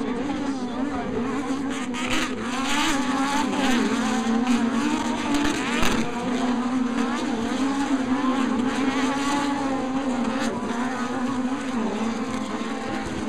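Off-road racing buggy engines running hard and revving on a dirt track, swelling louder for a few seconds about two seconds in as they come close.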